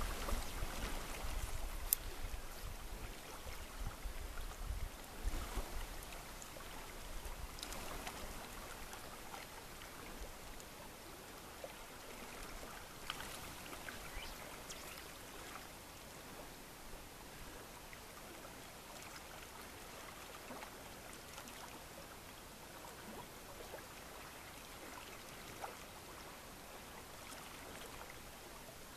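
River water flowing and lapping softly, with wind rumbling on the microphone for the first few seconds before it dies down.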